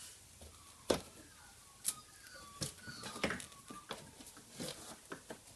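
Aluminium top-mount intercooler knocking and clunking against the engine and its brackets as it is lowered into place: a handful of sharp knocks spread over a few seconds, the loudest about a second in.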